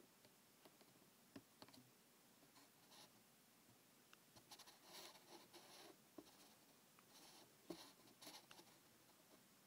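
Near silence, with faint scattered scratching and rustling that gathers into brief busier patches about five and eight seconds in.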